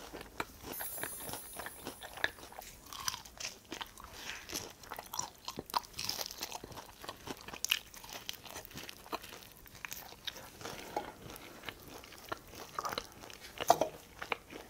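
Close-miked biting and chewing of yangnyeom chicken, Korean fried chicken in a sweet-spicy sauce with a thin batter: irregular crisp crunches and wet chewing, with one louder crack near the end.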